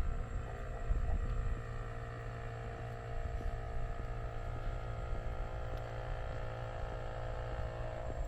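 A motor engine running steadily, a hum of several even tones, over low rumbling that sounds like wind on the microphone.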